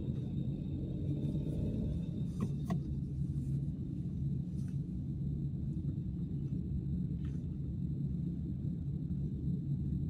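Car engine and tyre noise heard from inside the cabin while driving, a steady low rumble with a constant hum, with a few light clicks about two and a half, four and a half and seven seconds in.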